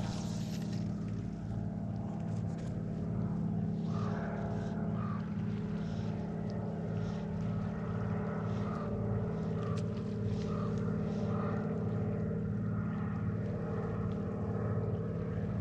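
An engine drones steadily throughout, its low hum holding the same pitch.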